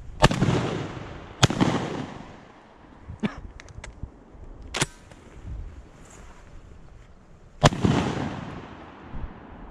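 Shotgun blasts during a duck hunt: two loud shots a little over a second apart right at the start, then a third about six seconds later, each with a long rolling echo. Fainter sharp cracks come in between.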